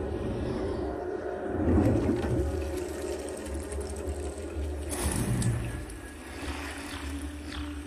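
Sound effects from a DTS surround-sound demo trailer: a steady deep rumble with sweeping whooshes, a sudden loud sweep about five seconds in, then light water-like drips near the end.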